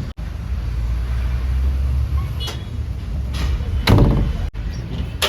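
Diesel engine of a Tata Hitachi Shinrai backhoe loader running steadily while digging, with a louder short burst about four seconds in. The sound cuts out briefly twice.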